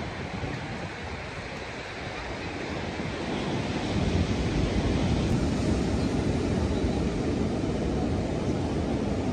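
Ocean surf breaking on a sandy beach, with wind buffeting the microphone. It grows louder about four seconds in.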